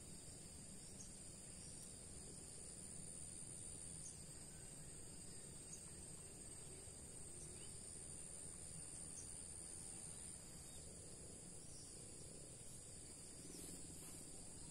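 Faint, steady high-pitched insect chirring over a low background hum.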